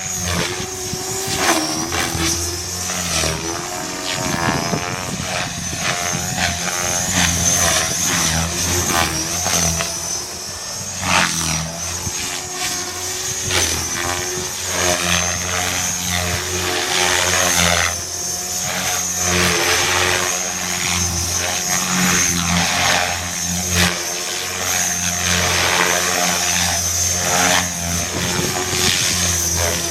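Radio-controlled DT520e helicopter in flight: a steady high whine over a rotor sound whose pitch rises and falls again and again as it manoeuvres, with several brief louder swells.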